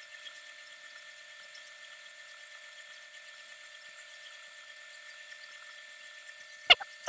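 A machine whining steadily and faintly, with several held high-pitched tones and no low end. A sharp click comes near the end.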